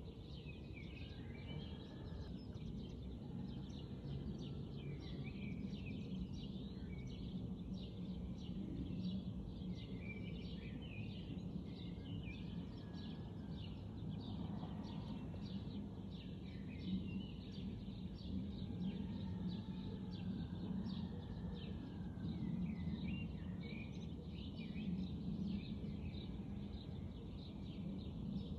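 Vegetable slices deep-frying in a pan of hot oil: a steady crackle of small pops, over a low steady hum.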